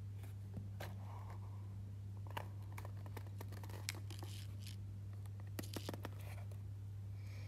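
A cardboard watch box being handled and opened: scattered scrapes and light clicks as the box slides out of its sleeve and the hinged lid is lifted, over a steady low hum.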